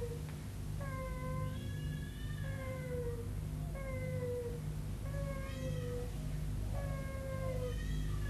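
Infant crying: a run of short wails one after another, about one a second, each falling in pitch.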